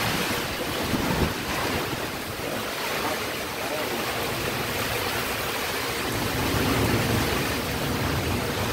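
Heavy rain falling steadily in strong, gusting wind, with the wind rumbling on the microphone.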